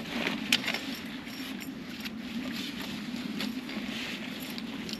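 Nylon backpack and hammock fabric rustling as the bag is handled and hung, with a sharp click about half a second in and lighter clicks and scrapes after it. A steady low hum runs underneath.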